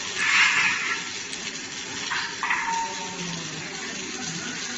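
Split set rock bolt ring welding machine at work: a steady noise with two short, loud hissing, sizzling bursts, one right at the start and one about two seconds in.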